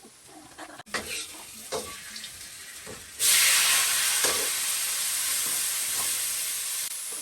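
A few clinks of a utensil against a cooking pan, then food going into hot oil about three seconds in and sizzling loudly, slowly easing off.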